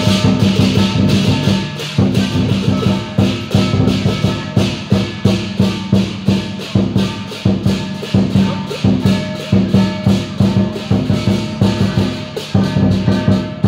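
Chinese lion dance percussion playing: a drum and clashing cymbals struck rapidly, about four strikes a second, with ringing metallic tones underneath.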